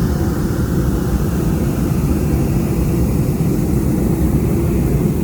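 Hot air balloon's propane burner firing: a loud, steady roar that carries on through the whole stretch.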